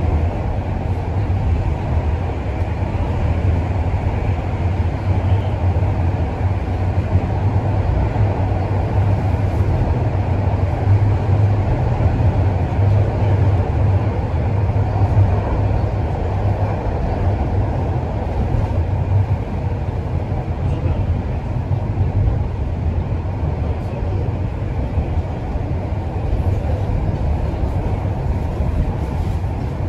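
Toronto Rocket subway train on TTC Line 1 running at speed between stations, heard from inside the car: a steady deep rumble of wheels on rail and running gear, easing slightly in the last third.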